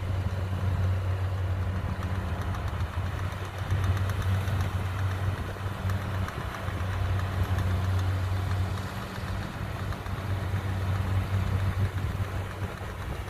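Kubota DC-70 rice combine harvester's diesel engine running steadily as it cuts and threshes flattened (lodged) rice: a constant low engine hum with a hiss of machinery above it.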